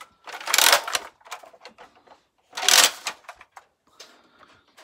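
Toy foam blaster play: two short rushing bursts with a scatter of sharp clicks and knocks between them.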